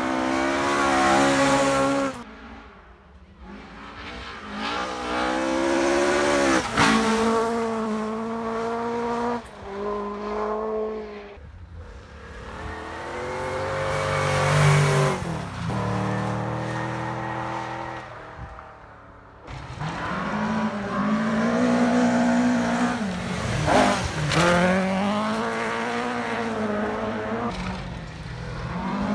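Historic rally cars, among them a Triumph TR7 and a Mk2 Ford Escort, driving flat out on a gravel forest stage in several separate passes. Each engine note rises under acceleration and dips sharply at gear changes and lifts.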